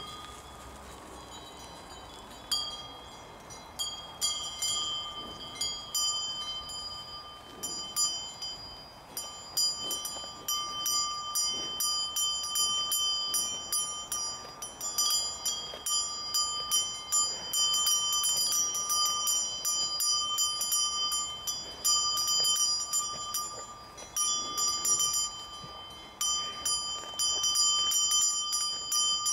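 Cowbells hanging from the necks of cattle, clanking irregularly as the cows move about. The strikes are sparse for the first couple of seconds, then come thick and overlapping, several a second.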